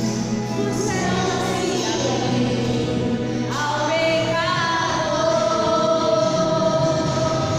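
A group of children singing a gospel song together over musical accompaniment, with long held notes.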